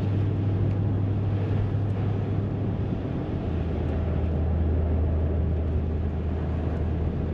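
Pickup truck driving on a slushy, snow-covered road, heard from inside the cab: a steady low engine and drivetrain drone over the hiss of tyres in slush. The drone drops a little in pitch about halfway through.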